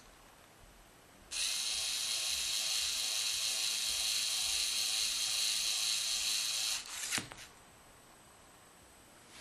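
A LEGO Mindstorms NXT servo motor whines steadily as the robot arm's gripper opens. The whine starts about a second in, lasts about five and a half seconds, and stops with a short clatter of knocks.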